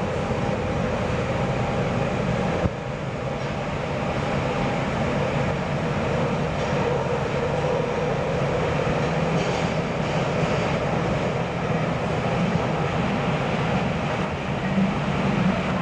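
Nagoya subway 2000-series electric train running through a tunnel, heard from inside the car at the front: a steady rumble of wheels on rail and running gear, with a faint steady hum running through it.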